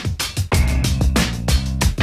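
Electronic music with a steady beat and a bass line.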